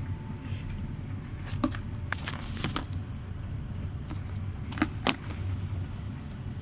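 Bosch tumble dryer running with a steady low hum, broken by several sharp clicks and knocks, a few about two seconds in and two more about five seconds in.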